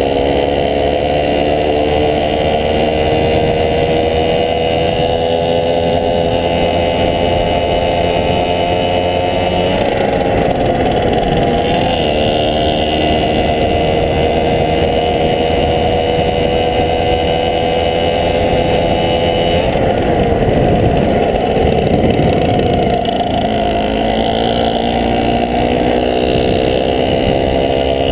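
1971 Tunturi Maxi moped's small two-stroke engine running under way. Its pitch climbs slowly, dips briefly about ten seconds in, then falls off around twenty seconds in and picks up again.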